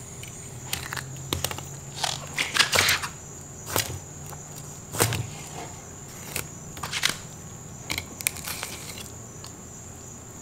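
Fillet knife cutting through a large mutton snapper along the backbone, crunching through the pin bones in a series of irregular short crunches and crackles.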